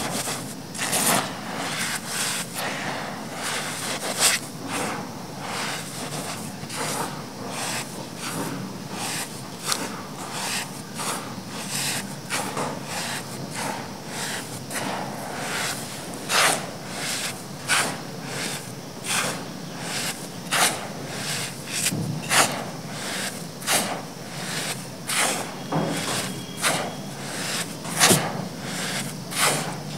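Hands squeezing and crumbling clumps of dry black sand: a continuous crunchy crackle broken by frequent, irregular sharper crunches as the clumps break apart.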